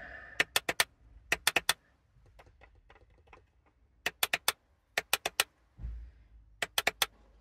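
Magnetic paddle shifters on a Porsche 718 Cayman steering wheel being flicked, giving sharp clicks in five quick bunches of three or four. There is a soft low thump just before the last bunch.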